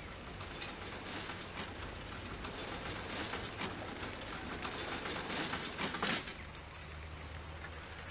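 Red-and-white bridge barrier boom being lowered: irregular mechanical clicking and rattling that thickens through the middle, with a low steady hum coming in near the end.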